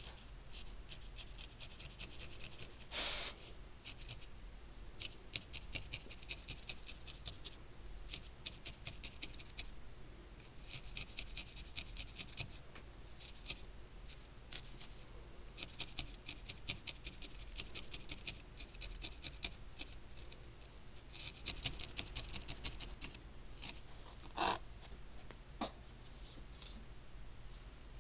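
Felting needle jabbing rapidly into a wool ball on a foam pad, making quick crisp ticks in runs of a few seconds with short pauses between. Twice a louder knock stands out, once about three seconds in and once near the end.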